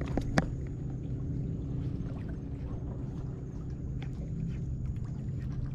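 Steady low hum of a boat's motor, with a couple of sharp ticks in the first half-second.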